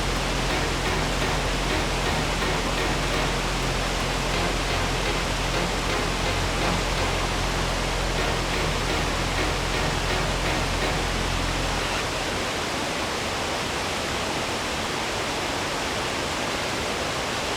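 Waterfall: a steady, even roar of rushing, falling water. A low steady hum sits underneath and stops about two-thirds of the way through.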